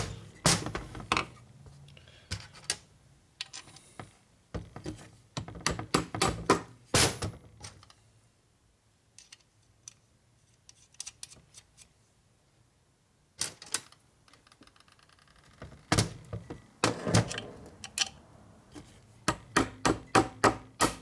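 Sharp metallic knocks and clinks coming in scattered clusters as steel fasteners and parts are handled and fitted into aluminium motorcycle crankcase halves on a metal bench, with quiet gaps between.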